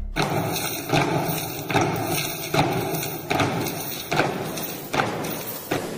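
Women inmates' footsteps marching in step on a hard floor: a regular heavy thud a little more often than once a second.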